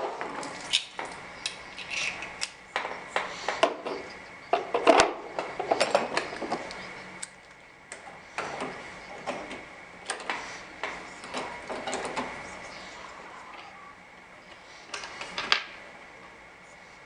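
Irregular metallic clicks and clinks of door lock hardware and tools being handled, busy at first and thinning out in the second half.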